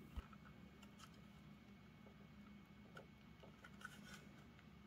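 Near silence with a few faint plastic clicks and ticks as a SATA power cable connector is handled and pushed onto a SATA SSD, plus one soft low bump just after the start.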